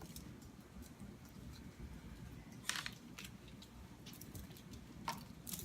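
Faint kitchen handling noises over a low steady hum: two short soft rustles, about three seconds in and near the end, as hands fold rice-flour sheets on a foil-covered board.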